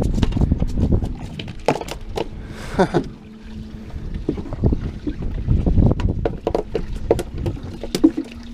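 Scattered knocks and clatter aboard a small fishing boat over a low, steady rumble.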